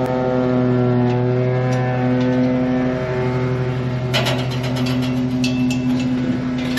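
Lawnmower engine running steadily. About four seconds in and again near the end, short metallic clinks come from a propane cylinder being unhooked and lifted out of its compartment.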